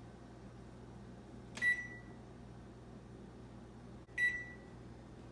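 Oven control panel beeping twice, about two and a half seconds apart, as its buttons are pressed to set the temperature and broil mode. Each beep is short and high-pitched.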